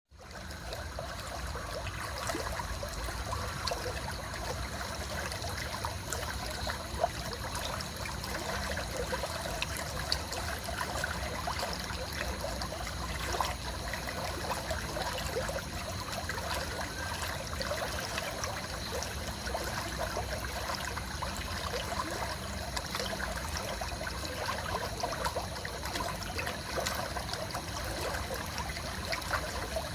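Running water trickling steadily, full of small ticks and splashes, with faint steady high-pitched tones above it.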